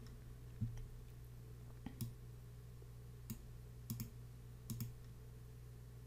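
Computer mouse clicking: about eight short, sharp clicks, spaced irregularly and some in quick pairs, over a faint steady low hum.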